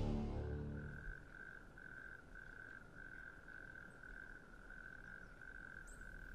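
A frog calling in a faint, evenly pulsed trill at one steady pitch, about two or three pulses a second. The tail of music fades out in the first second.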